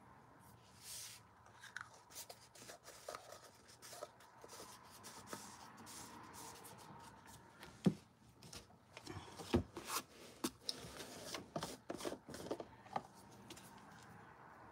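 Paintbrush scraping and dabbing acrylic paint in a plastic tray, with scattered light clicks and knocks of paint jars and lids being handled on the table. The two sharpest knocks come about eight and nine and a half seconds in.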